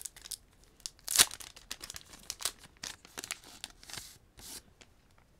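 Pokémon Celebrations booster pack being opened by hand: its foil wrapper crinkling and tearing in a string of short rustles, the sharpest about a second in, then the cards handled.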